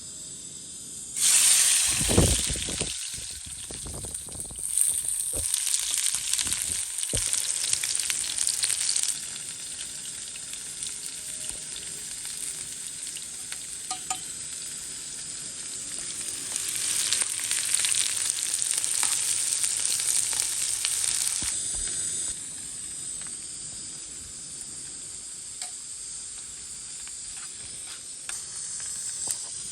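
Food frying in hot oil in a pan: the sizzle jumps up suddenly about a second in and stays loud for several seconds, with a few low knocks. It eases, swells again for a few seconds in the middle, then settles to a softer sizzle.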